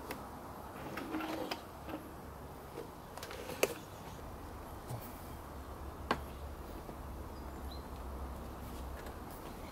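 A few sharp clicks and knocks of hands handling intake pipes and hoses on a switched-off engine, the clearest about a third of the way in and again past the middle, over a faint steady low hum.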